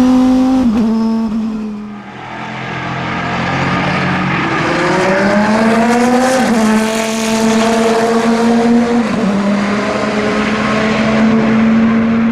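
Chrysler Viper GTS-R race car's V10 engine at full throttle. Its pitch climbs under acceleration and drops sharply at two upshifts in the second half.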